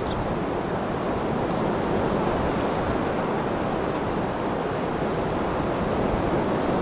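Steady rush of a tropical breeze through palm fronds, mixed with the wash of lagoon surf, swelling slightly after a couple of seconds.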